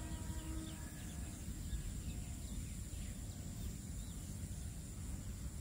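Steady low background rumble with faint, scattered bird chirps, and a faint steady tone that stops about a second in.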